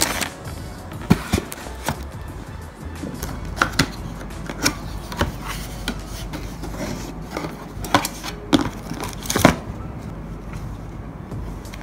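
Cardboard camera box being opened and its packaging handled: a string of sharp taps and clicks, the loudest about nine and a half seconds in, over steady background music.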